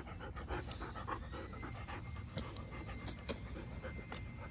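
Irish wolfhound puppy panting close to the microphone, quick breaths at about five a second that thin out after the first second and a half. One sharp click about three seconds in.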